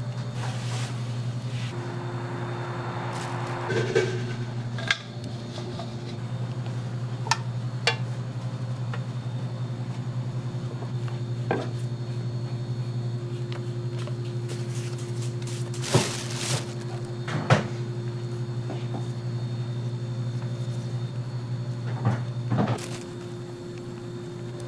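Steady low electrical machine hum in a rice-cake kitchen, with a higher steady tone joining about two seconds in. Over it, a few short clicks and knocks, loudest twice in the middle and once near the end, from the plastic bench scraper and gloved hand working rice flour in a metal steaming tray.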